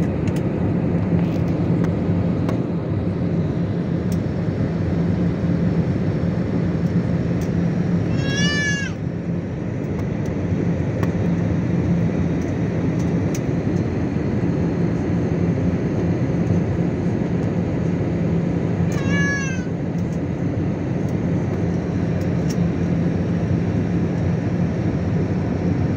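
Steady airliner cabin noise during the descent to landing: jet engine and airflow noise heard from a window seat. Twice, about eight seconds in and again near nineteen seconds, a short high cry rising and falling in pitch cuts through, meow-like.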